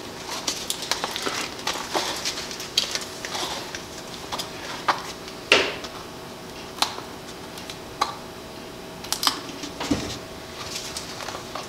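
Plastic resin and dye bottles handled on a stainless steel workbench: irregular clicks and taps of caps being opened and bottles set down, over a faint steady hum.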